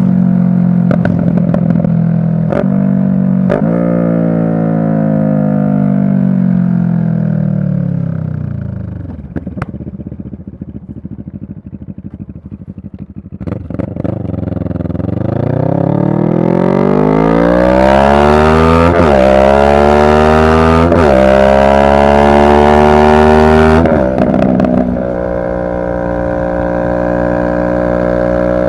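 Motorcycle engine of a 2023 CFMoto 650NK parallel twin, heard on a ride. Its note falls as the bike slows to an idle, runs low and steady for several seconds, then rises again as it pulls away, with a few short breaks in the rising note. It settles into a steady cruising note near the end.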